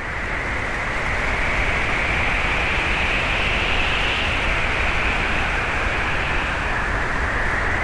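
Heavy wind blowing over a helmet-mounted GoPro Hero3's microphone: a steady rush of noise with a deep buffeting rumble underneath.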